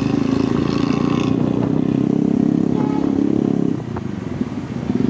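Bus diesel engine running through a 'ngorok' exhaust, a deep, even snoring throb. It drops off a little just before four seconds in, with a single click just after.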